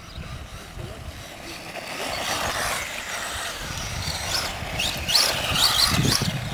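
Radio-controlled off-road buggy running on a dirt track, its motor and tyres getting louder from about two seconds in, with short rising and falling whines near the end as it speeds up and slows.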